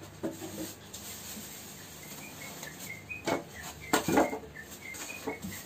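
Clear plastic bag crinkling and rustling in a few short bursts as it is pulled and handled around a PC case, loudest a little past halfway. Faint high chirps repeat in the background through the second half.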